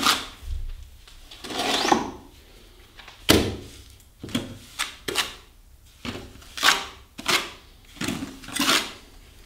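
Hand trowel scraping and smoothing wet plaster onto a door reveal, in a string of irregular strokes with a sharper knock a little over three seconds in.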